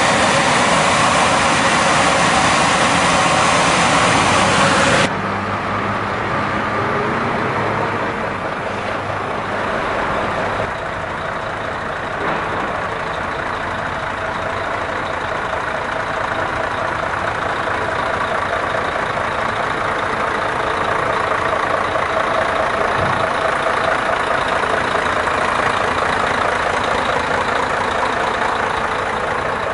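A heavy suction excavator truck's engine runs steadily. For about the first five seconds a loud, even rushing noise covers it, then stops abruptly, leaving the engine running alone.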